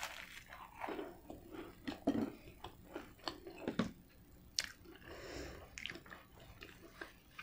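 A person chewing a mouthful of extra-toasted garlic bread dipped in ranch, close to the microphone: irregular soft, wet mouth clicks and smacks, with a few sharper clicks along the way.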